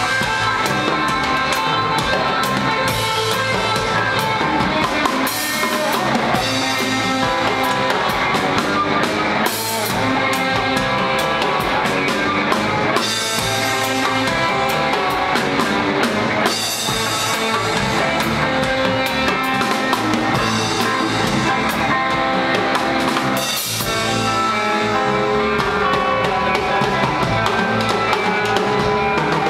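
Pop-rock band playing live, with the drum kit driving a steady beat under the other instruments.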